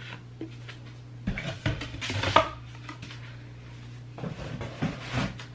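Rolls of heat transfer vinyl and their packaging being handled: scattered knocks, taps and rustles in two bursts, about a second in and again near the end, over a steady low hum.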